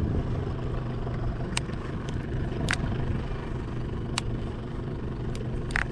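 Small boat's outboard motor idling steadily, with a few sharp clicks spread through it.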